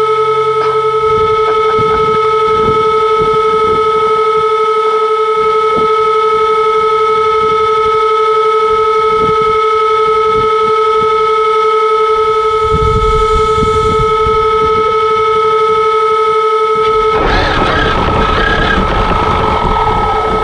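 Traxxas X-Maxx RC truck sitting with its electronics giving off a steady high whine made of several tones. About 17 seconds in, the truck drives off, and a rush of motor and snow noise joins the whine.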